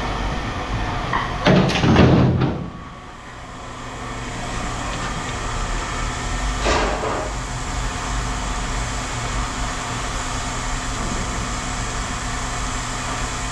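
A heavy load of scrap metal dropped with a loud clatter about two seconds in, and a smaller clank later, over a steady mechanical hum.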